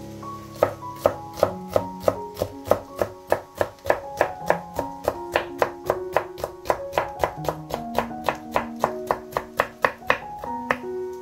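Instrumental music: a quick, even run of short plucked notes, about four a second, over held tones, easing off near the end.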